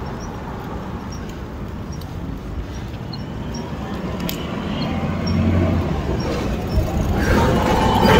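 Street traffic noise, with a city transit bus's engine rumble building over the last few seconds as the bus pulls past close by.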